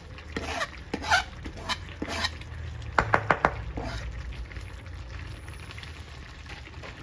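A pot of meat and vegetables in red wine sauce simmering with a steady low bubbling hiss. A few scattered clicks come in the first couple of seconds, then a quick run of four sharp taps about three seconds in, as parsley is added to the pot.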